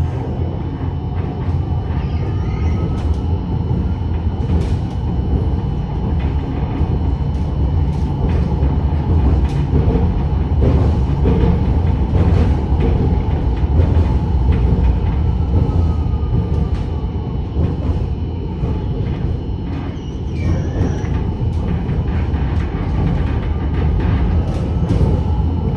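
Tram running on its rails, heard from inside the car: a steady low rumble with scattered clicks and knocks, and a faint motor whine that rises and falls slowly in pitch.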